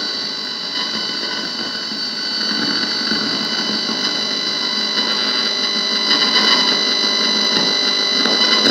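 Electrical interference picked up by a handheld receiver wired to a double row of film capacitors, heard from its speaker as a steady rasping buzz with several high whistling tones. It grows louder and rougher from about six seconds in, as the capacitor assembly is turned.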